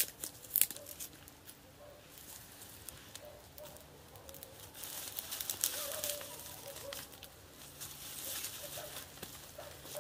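Campfire crackling, with irregular sharp pops and snaps, the loudest right at the start.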